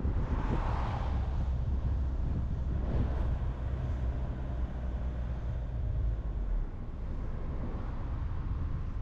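Car driving on a highway: steady low road rumble with tyre and wind noise. A brief swell of higher noise comes about a second in and another around three seconds in, and the deepest rumble eases near the end.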